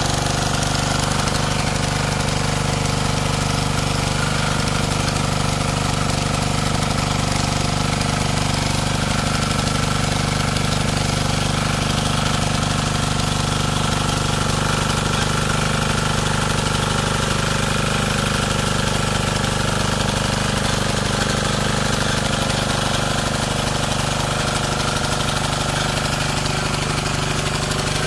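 Bertolini 215 diesel tiller running steadily at an even pace while it works the greenhouse soil.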